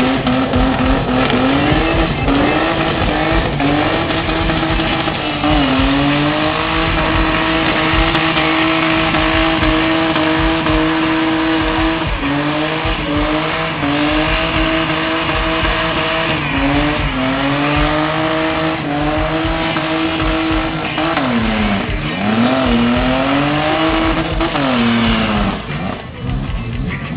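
BMW car doing a burnout: the engine is held at high revs, its pitch dipping and climbing back several times, while the spinning rear tyres squeal and hiss. The sound falls away briefly near the end.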